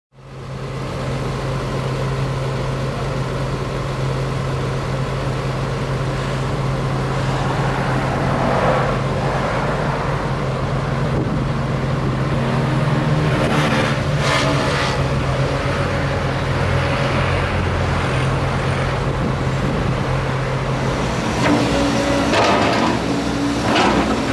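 Volvo EC210 excavator's diesel engine running steadily under work, with a few louder rough scraping noises, around the middle and near the end, from the machine tearing up the road.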